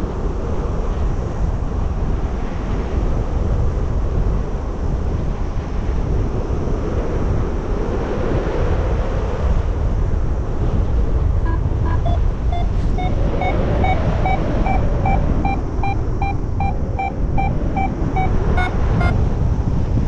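Wind rushing over the camera microphone of a paraglider in flight. About halfway through, a variometer begins to beep: short, evenly spaced beeps, about three a second, rising slightly in pitch. This is the climb signal, showing the glider is rising in lift.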